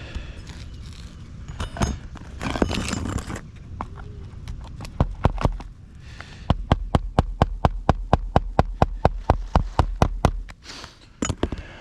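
Hammer driving roofing nails into asphalt shingles: a fast, even run of sharp strikes, about five a second, for some four seconds, after a few scraping and rustling sounds.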